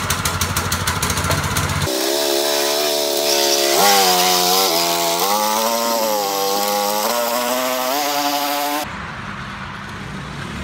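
Small single-cylinder engine of a homemade trike, first running with a fast, even putter, then revving high as the trike is ridden, its pitch rising and falling in steps. Near the end it drops suddenly to a fainter, more distant running.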